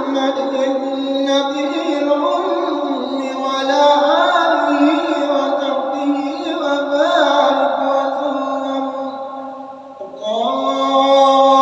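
An imam's male voice chanting the qunut supplication of the dawn prayer in a melodious, gliding melody. About ten seconds in he breaks off, then starts a long, held call, the takbir as he goes down to prostrate.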